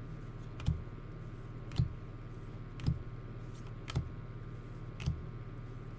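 Trading cards being flipped one at a time through a freshly opened pack, each card giving a short snap about once a second, five in all, over a steady low hum.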